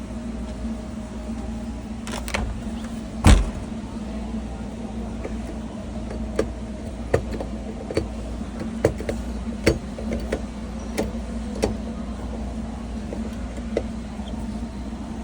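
Steady low hum of a large store's background machinery, with one loud thump about three seconds in. Then comes a run of sharp clicks, about one every three-quarters of a second: footsteps on a hard store floor.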